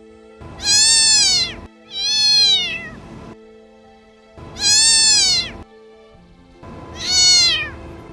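A cat meowing four times, each call about a second long and rising then falling in pitch.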